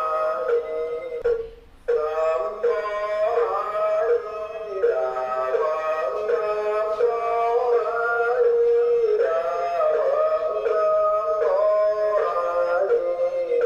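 Music with a sung or synthetic-sounding melody moving from note to note, which dips briefly about a second and a half in.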